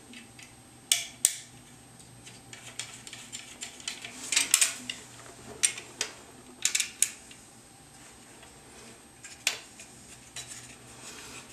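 Irregular sharp clicks and clinks of the Saiga 12 shotgun's metal parts and its bullpup stock being handled and fitted together, with a cluster of quick clicks around the middle and a few single knocks.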